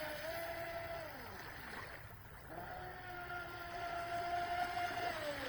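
Pro Boat Recoil 2 RC boat's brushless electric motor whining under throttle, the pitch falling as the throttle is eased about a second and a half in, rising again about a second later, holding steady, and falling again near the end.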